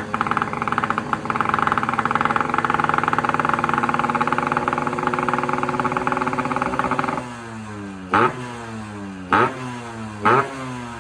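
Yamaha RX-series two-stroke single-cylinder motorcycle engine with a newly fitted inbuilt silencer, held at steady raised revs while it is being tuned. About seven seconds in it drops to idle, then takes three quick throttle blips that rise sharply and fall back.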